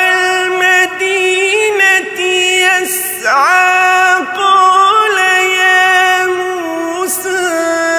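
A solo male voice reciting the Quran in melodic tajwid style into a microphone, holding long notes with ornamented pitch turns and gliding between them, with a few sharp hissed consonants along the way.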